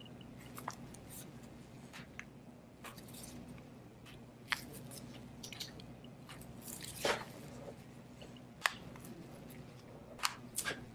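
Plastic retaining clips between a Samsung Galaxy S6 Active's midframe and back housing snapping loose as the phone is squeezed and flexed: scattered sharp clicks and creaks at irregular intervals, the loudest a longer crackle about seven seconds in.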